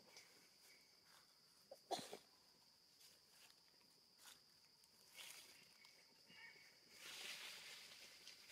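Faint outdoor ambience: a steady high insect drone with a few soft clicks and rustles, and one sharper tick about two seconds in.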